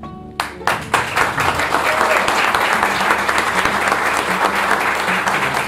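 Audience applauding: a few scattered claps about half a second in, quickly swelling into steady, full applause.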